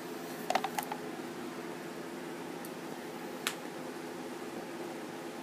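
A steady low hum of room noise, with a quick cluster of clicks about half a second in and a single sharp click about three and a half seconds in.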